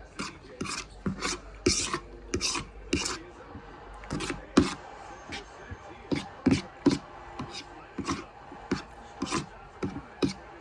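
Close-miked eating of spaghetti: wet mouth sounds of chewing and smacking, in short sharp bursts about two or three a second, with a few longer ones near the start.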